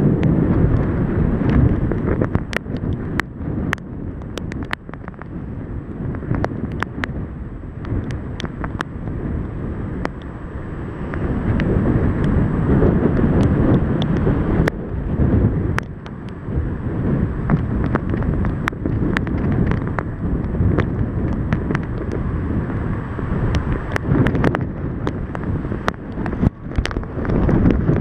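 Thunderstorm wind gusting over the camera microphone: a loud, rumbling wind noise that swells and eases, with scattered sharp ticks through it.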